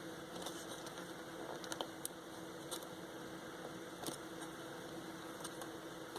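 Faint scattered clicks and taps of small headset parts being handled, over a steady low hiss and hum of room background.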